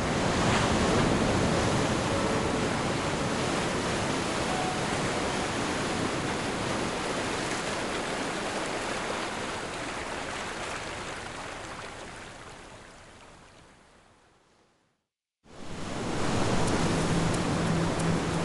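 Steady rushing noise like sea surf in the soundtrack. It fades out gradually to silence about fourteen seconds in, starts again abruptly a second later, and low music notes come in near the end.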